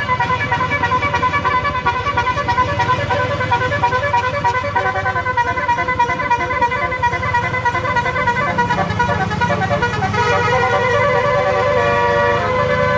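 Bus telolet horn of the Basuri type, a set of electric-pumped air horns, playing a quick tune of short notes over the bus engine's low running. About ten seconds in, the horn changes to longer held notes and gets louder.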